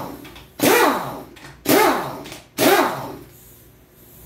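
A dog barking repeatedly: loud single barks about a second apart, three in all, the first cut off at the start.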